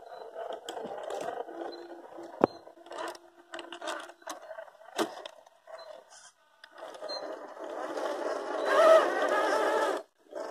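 Small electric motor and gear drivetrain of a scale RC crawler, a Fusion 1800kv brushless motor, whining in short bursts under throttle as the truck crawls through a dirt rut, with a couple of sharp knocks. The longest and loudest run of motor whine, wavering in pitch, comes in the last few seconds.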